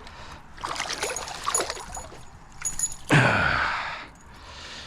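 Water trickling and splashing with handling noises as a freshly caught bass is held at the water, and a loud breathy vocal sigh with a falling pitch about three seconds in.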